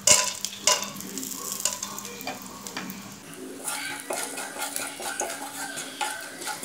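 Whole spices (peppercorns, cardamom pods, cinnamon and star anise) sizzling in a little hot ghee in a non-stick pot, with a sharp knock right at the start. From about halfway a spatula stirs and scrapes them around the pan, giving a run of small clicks.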